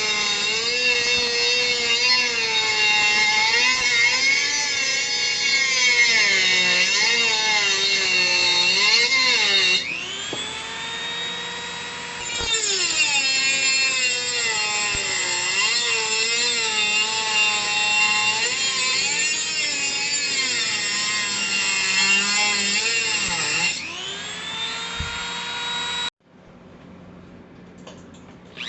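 Bench drill press driven by a converted treadmill motor, running with a whine that wavers up and down in pitch. The sound cuts off abruptly near the end, leaving only a faint hum.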